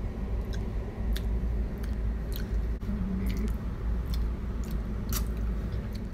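Someone biting into and chewing a crisp slice of green fruit, with scattered crunchy clicks of the bites and chews.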